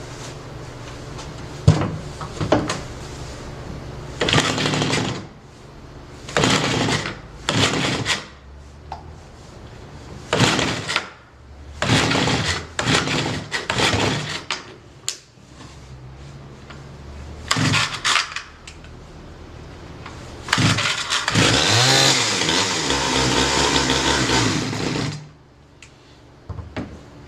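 Stihl 011AV two-stroke chainsaw engine running, revved in a series of short throttle bursts and one longer rev of about four seconds, then shut off near the end. It is running rich, which the owner puts down to a missing check valve in the fuel tank breather line letting fuel splash into the air filter.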